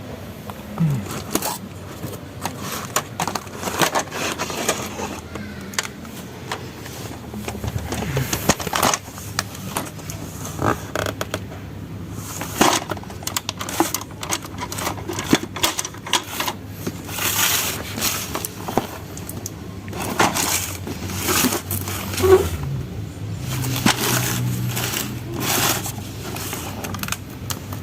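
Plastic toy vehicles being handled and played with: irregular clicks, knocks and clatter throughout, over a faint steady low hum that grows a little stronger near the end.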